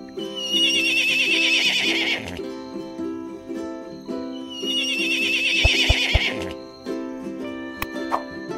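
A horse whinnying twice, a long quavering call each time, the second about four seconds after the first, over steady background music.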